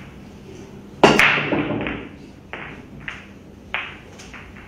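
Sharp clacks of billiard balls striking one another: one loud crack about a second in, then several lighter clicks.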